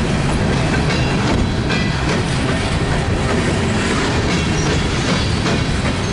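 Empty coal hopper cars of a CSX freight train rolling past close by: a steady rumble of steel wheels on rail with clatter over the rail joints.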